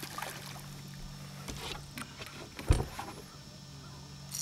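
Fishing boat noise: a steady low hum, with a single sharp thump about two and a half seconds in.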